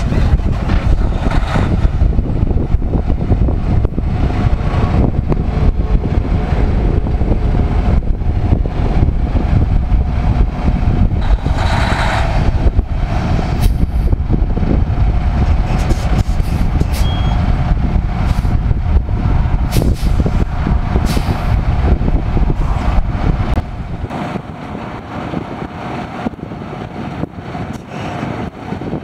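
Wind buffeting the microphone outdoors, a loud low rumble that drops off sharply near the end. Under it runs a faint steady hum, with a few short clicks and one brief hiss about twelve seconds in.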